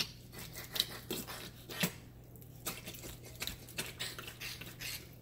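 A knife cutting a raw whole chicken down the middle on a wooden cutting board: irregular clicks and knocks of the blade against the board and the carcass. A faint steady hum runs underneath.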